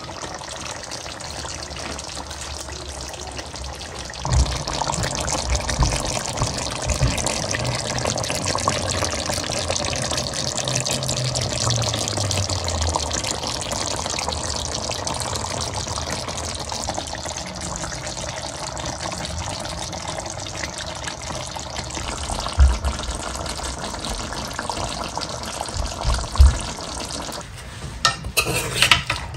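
Chicken karahi simmering and sizzling in a metal pan on the stove: a steady hiss of bubbling tomato sauce that grows louder about four seconds in. A few low knocks are heard along the way.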